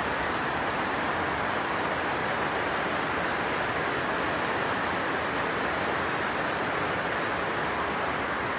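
Steady, even rushing hiss of air-like noise with no breaks or changes in level.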